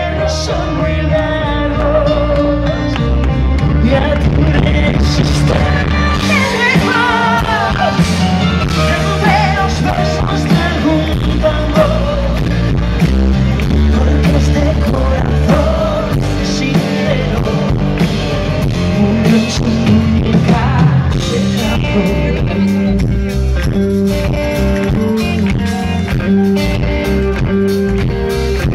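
Live pop-rock band playing, with a female lead vocal over drums, electric guitar and bass. The singing stops about three quarters of the way through, leaving the band playing an instrumental passage led by electric guitar.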